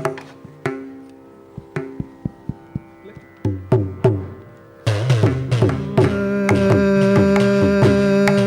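Live Indian classical music: ringing, pitched hand-drum strokes, joined about six seconds in by a steady held melodic note over the drumming.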